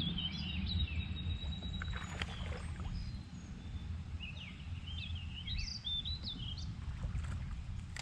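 A songbird singing short warbled phrases, once at the start and again a few seconds later, over a steady low rumble of wind or moving water.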